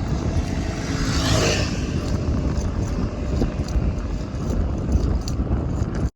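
Steady rumbling road noise with a vehicle passing about a second in, its sound swelling and falling in pitch, and a few light ticks.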